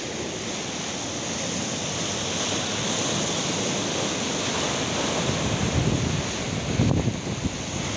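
Sea waves washing and breaking against shore rocks, with wind on the microphone; a heavier surge swells up about six seconds in.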